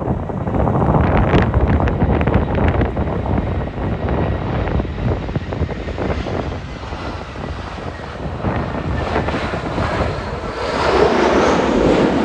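Jet engines of an Airbus A320-214 (CFM56 turbofans), heavily buffeted by gusting wind on the microphone, with a thin whine that rises in pitch near the end.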